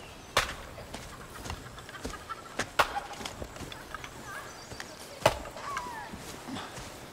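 Wood being chopped: three loud sharp strikes about two and a half seconds apart, with softer knocks between, and short bird calls in the background.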